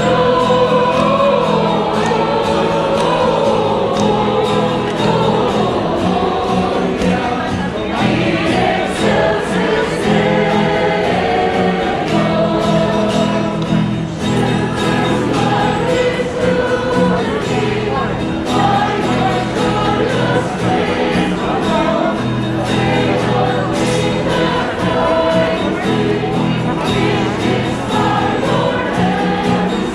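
Choir singing with instrumental accompaniment, a festive hymn-like song that carries on steadily throughout.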